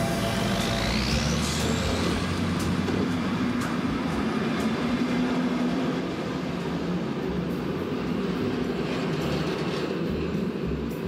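Passenger train pulling out of a station: a steady rumble and hiss, with a high tone rising steeply about a second in and the noise easing slightly about halfway through.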